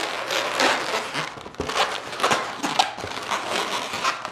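Inflated latex modelling balloons squeaking and rubbing against each other as two bubbles are twisted together, a run of irregular short squeaks and scrapes.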